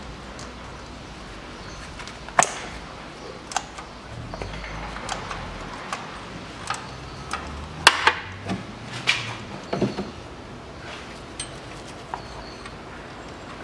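Irregular clicks and knocks of hand work on a car engine's timing belt cover as its last bolt is undone and the cover is worked loose. The sharpest knock comes about eight seconds in, within a cluster of clatters.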